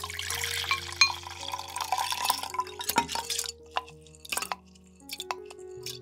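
Water poured from a small glass bowl into a glass tumbler for about three and a half seconds, then a wooden spatula scraping soaked rice out of the bowl, with a string of light clicks of glass and wood. Soft background music underneath.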